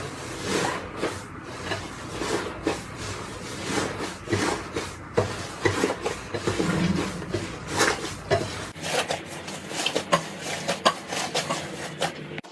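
Slime being squeezed and pressed by hand, giving an irregular run of sharp clicks, crackles and squishy pops, several a second.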